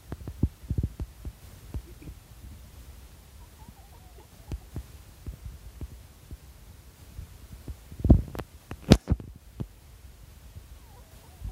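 Low, irregular thumps and knocks, the loudest about eight seconds in, followed by a sharp click a second later. Faint, short squeaks from a young kitten come near the start and again near the end.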